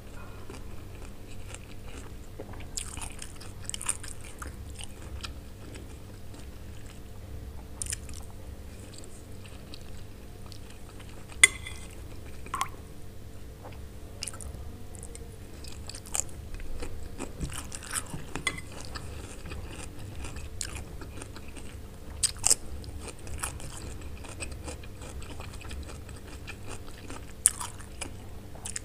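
Close-miked chewing and crunching of fried pasta and cucumber, with a metal spoon clinking sharply against the plate a few times, loudest about a third of the way in, and twice near the end. A steady low hum lies underneath.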